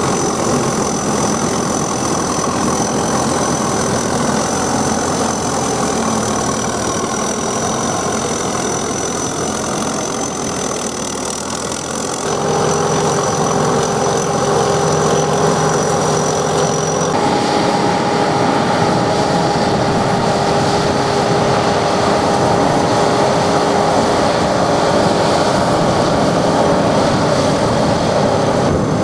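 SS100 mini rice combine harvester running, its engine and machinery making a steady drone with a high whine over it. The tone and level shift abruptly about twelve seconds in and again about seventeen seconds in.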